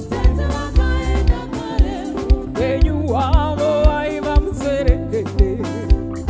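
Live band music with a steady drum beat of about two strong kicks a second under bass and guitar, and a woman's voice singing a wavering melodic line over it from about two and a half seconds in.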